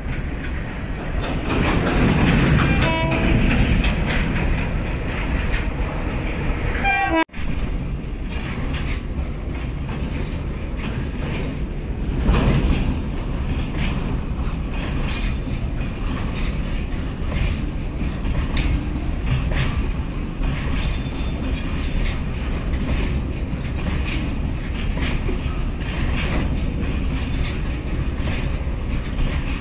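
Empty BOXNHL open freight wagons rolling past: a steady rumble of steel wheels on rail with a run of clickety-clack over the rail joints. The sound drops out for a moment about seven seconds in.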